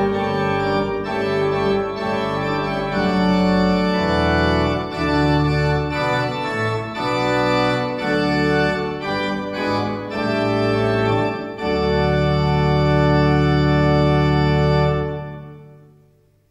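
Church pipe organ playing a slow, full-voiced chordal passage with a changing bass line, ending on a long held final chord about twelve seconds in that fades out near the end.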